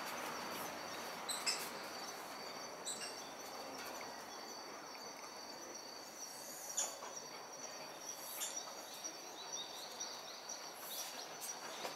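Steady outdoor background noise with a thin, high, unchanging whine like insects, a few sharp clicks or knocks, and faint bird chirps near the end.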